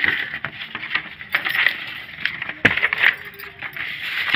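Sheets of stamp paper and typed pages rustling and crackling as they are handled and turned, with light clinks and one sharp click about two-thirds of the way through.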